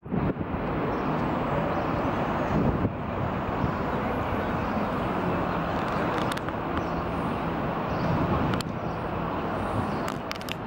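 City street ambience: steady road traffic noise, with a few sharp clicks or knocks about six seconds in and again near the end.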